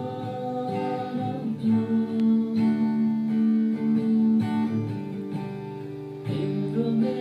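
Music: a song with acoustic guitar strumming chords.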